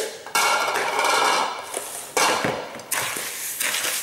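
Coarse salt-and-sugar curing mixture being stirred in a bowl: a gritty scraping in a few long strokes.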